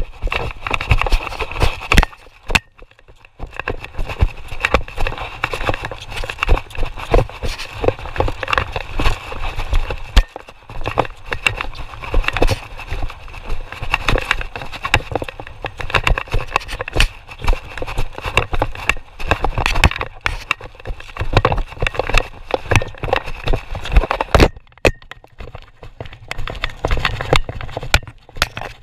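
A horse running through a pole-bending pattern on arena dirt, heard from a camera on the rider: a dense, uneven run of hoofbeats mixed with knocks and rattles from the saddle and tack. There is a brief lull about three seconds in.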